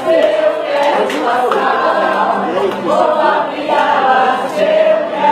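A group of people singing a Brazilian carnival marchinha together, many voices at once.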